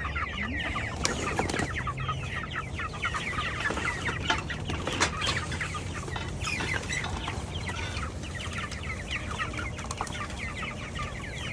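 A flock of 32-day-old meat chickens peeping and clucking constantly, many short high calls overlapping, with a few knocks among them.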